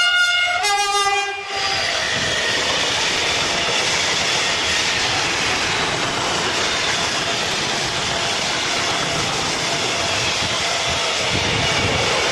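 SNCF BB 75000 diesel locomotive sounding its horn, which stops about a second and a half in, then a freight train of gas tank wagons rolling past close by with a steady rumble and wheel clatter on the rails.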